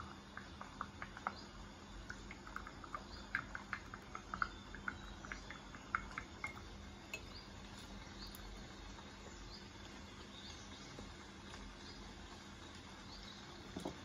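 A spoon clinking rapidly against the sides of a glass as a chocolate drink is stirred, stopping after about six seconds; near the end a fork clinks a few times on a ceramic plate. Under it runs rainforest ambience with faint, evenly repeated chirping calls.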